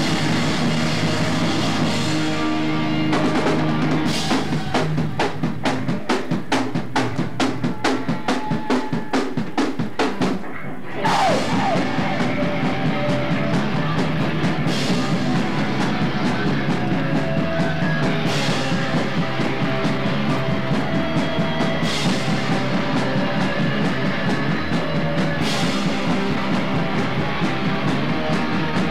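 A live rock band playing loud: guitar, bass and a drum kit, with rapid drum hits for several seconds. About ten seconds in the band briefly drops out with a falling pitch slide, then comes back in, with cymbal crashes every few seconds.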